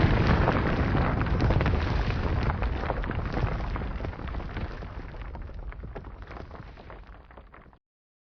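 Sound effect of a deep rumbling boom with scattered crackles, fading steadily over nearly eight seconds and then cutting off abruptly into silence.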